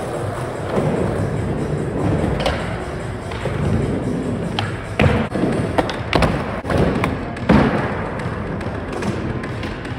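Skateboard wheels rolling on a concrete skatepark floor with a steady rumble. Several sharp clacks and thuds from the board cut through it, the loudest in the middle.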